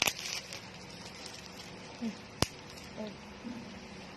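Small handling noises from unboxed hair-care products and packaging: a brief crinkle at the start and one sharp click about two and a half seconds in, over a faint steady hum.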